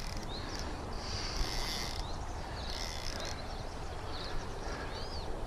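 Small birds chirping in short, repeated, rising-and-falling calls over a steady low rumble.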